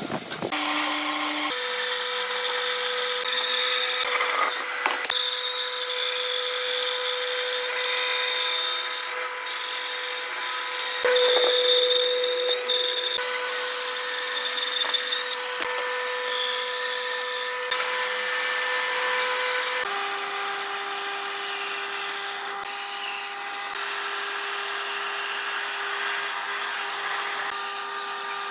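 An electric power tool running steadily as it works wood, a constant motor whine whose pitch steps down once, about two-thirds of the way through.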